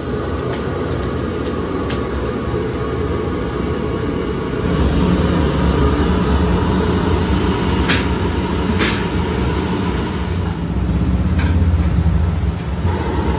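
Steady low roar of gas burners firing under large iron woks of chicken deep-frying in oil, with a fainter frying hiss above it. A few sharp metal clinks of the ladle against the wok, twice close together around the middle.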